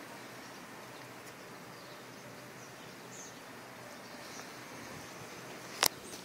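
Steady outdoor background noise with faint bird chirps now and then, and a single sharp click near the end.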